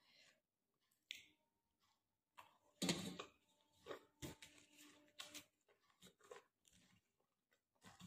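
Faint eating sounds: a person chewing, with scattered small clicks and one louder short noise about three seconds in.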